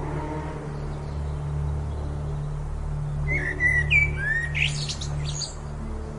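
Birdsong: a burst of quick chirps and short rising and falling whistles starting about three seconds in, over a steady low drone of held tones from ambient relaxation music.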